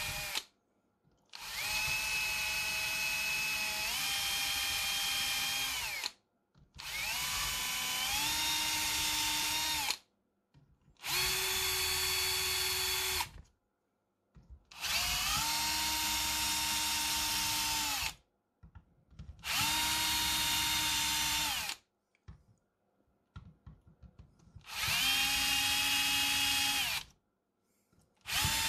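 Cordless drill boring into an aluminium plate in about seven separate runs of a few seconds each, with short pauses between them. The motor whine steps up in pitch partway through several of the runs.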